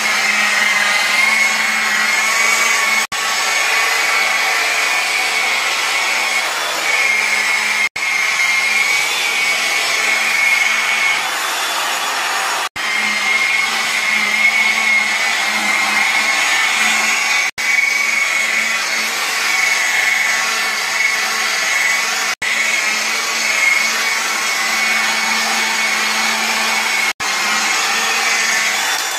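Electric rotary car polisher running steadily with its foam pad buffing car paint on a front fender, a constant motor whine with a low hum beneath. The sound drops out very briefly about every five seconds.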